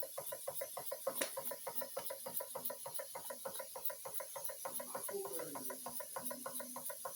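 Small model steam engine running steadily, its exhaust beating evenly about six or seven times a second, with a sharp click about a second in.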